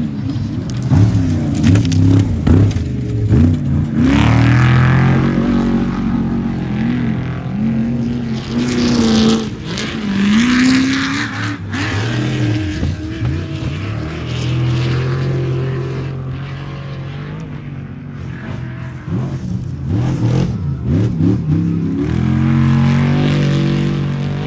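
Engines of off-road race trucks revving hard, the pitch climbing and dropping again and again with throttle and gear changes, at times two engines at once.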